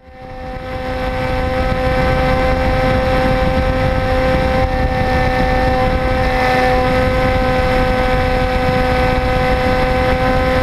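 Brushless electric motor (Turnigy G10, 810 kV) spinning a 12x6 propeller at a steady speed, heard from a camera on board the flying RC plane: a steady whine at one pitch over low wind rush on the microphone. It fades in over the first couple of seconds.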